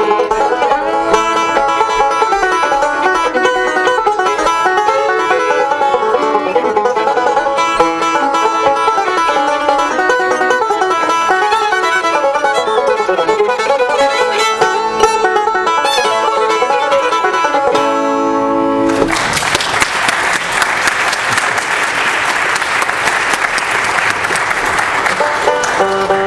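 Banjo and fiddle playing a tune together, ending on a held final chord about 18 seconds in. Audience applause follows.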